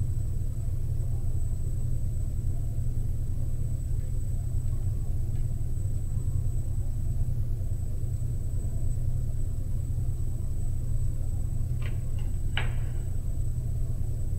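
Steady low background rumble with a faint high-pitched whine, with two small clicks near the end from hands handling an alligator clip and wires.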